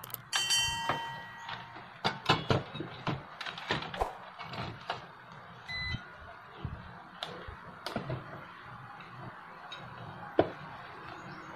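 Clicks, taps and knocks of an amplifier circuit board and multimeter probes being handled in a metal chassis while checking for a shorted component. A digital multimeter beeps for about a second near the start and gives a shorter beep about six seconds in, its continuity beep.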